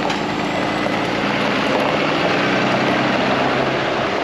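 Engine of a trolley bus running steadily as it comes up the road, with a low hum under a broad rushing noise.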